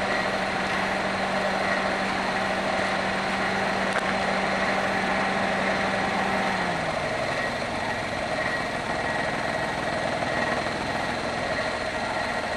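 Daihatsu Mira L275S three-cylinder engine running at idle, a steady hum whose low tone drops in pitch a little over halfway through as the idle settles lower. The owner reports an intermittent rattling ("karakara") noise from the engine since start-up.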